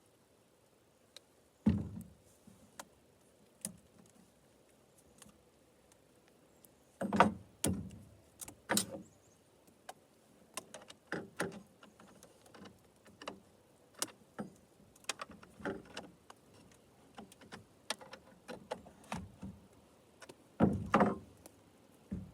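Irregular clicks, taps and knocks of a chainsaw's bar and chain being handled and adjusted during assembly, metal parts rattling against each other. The loudest knocks come about two seconds in, around seven seconds in and near the end.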